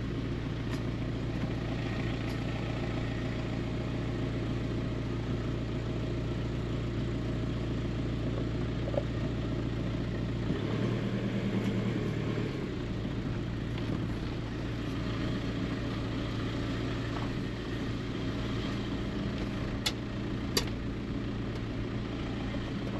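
Diesel engine of a small van running steadily while driving, with a brief shift in its tone about eleven seconds in. Two short clicks near the end.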